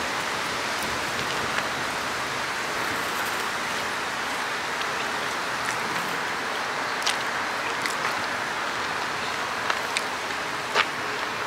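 A steady, even hiss of background noise, with a few faint clicks scattered through the second half.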